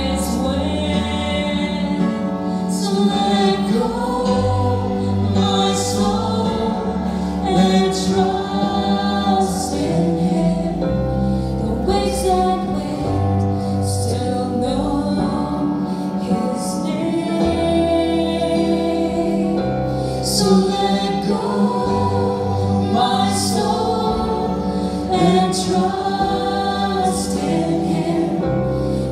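Live church worship band playing a gospel worship song, with voices singing together over a steady bass.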